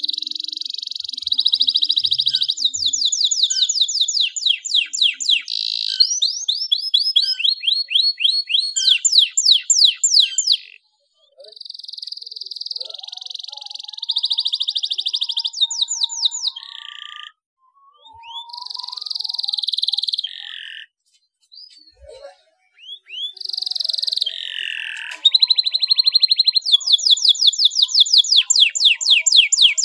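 Domestic canary singing a long, high-pitched song of rapid trills and rolling phrases, broken by a few short pauses around the middle.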